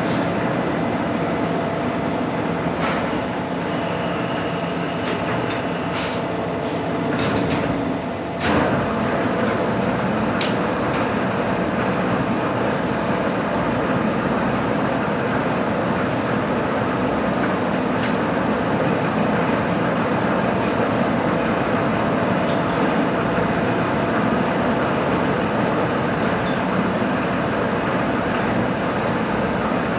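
Metal-cutting machine tool running steadily, a continuous mechanical roar with a faint constant whine, broken by a few sharp metallic clicks about five to nine seconds in.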